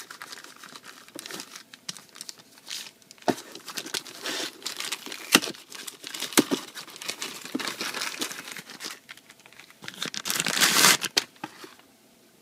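Plastic wrapping crinkling and rustling in irregular handfuls as a small subwoofer is worked out of it by hand. It grows louder about ten seconds in, then stops shortly before the end.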